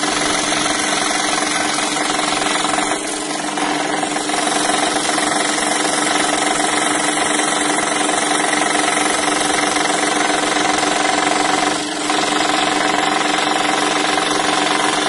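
Scroll saw running, its reciprocating blade cutting through 10 mm birch plywood with a steady drone, briefly quieter twice, about three and twelve seconds in.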